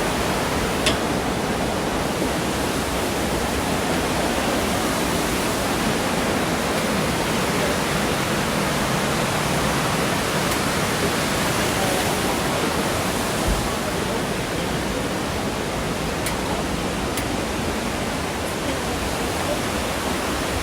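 Steady rush of creek water tumbling over rocks, an even unbroken roar with a few faint clicks from the phone being handled.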